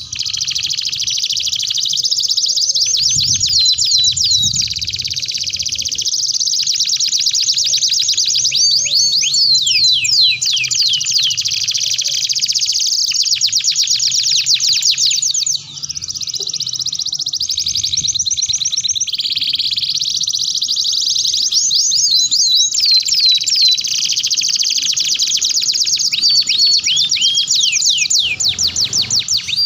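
Domestic canaries singing a long, continuous song of rapid high trills and repeated falling whistled notes, with a brief break about halfway through.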